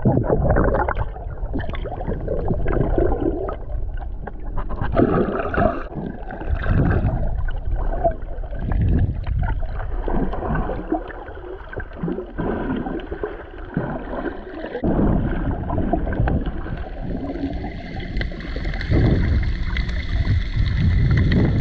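Muffled underwater water noise around a submerged camera: uneven sloshing and gurgling from a snorkeler swimming, rising and falling in swells.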